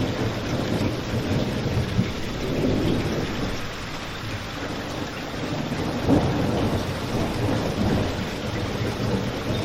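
Steady heavy rain with a deep low rumble underneath, and a couple of brief sharp pops from a crackling fireplace, about two seconds in and again about six seconds in.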